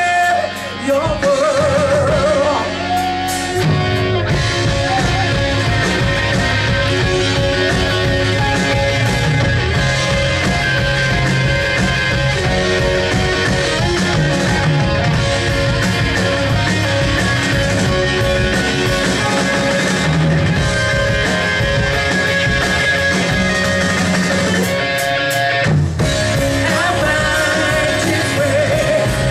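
Live rock band playing loud, with electric guitars, bass and drums. A lead vocal with vibrato sings near the start and again near the end, and the band plays on between.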